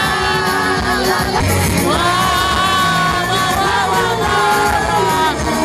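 Live pop performance: female singers holding long notes through microphones over backing music, two sustained phrases with a short break between them.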